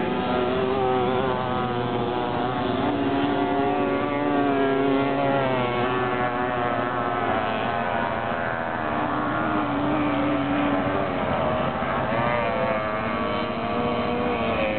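Several small two-stroke moped engines racing together, their overlapping tones wavering up and down in pitch as the riders rev and ease off.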